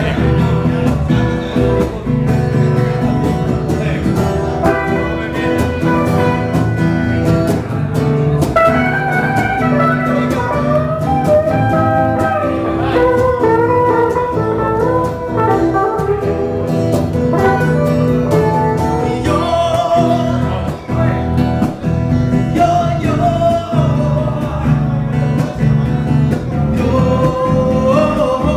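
Live Latin music from a jam session: guitar playing with a melody line carried over it, continuous and fairly loud.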